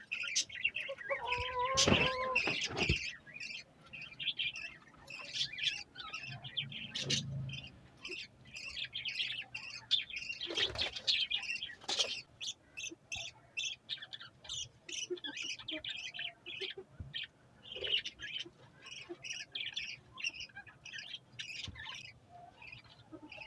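Budgerigars chirping and chattering without pause in quick, high twittering notes, with a few sharp clicks among them.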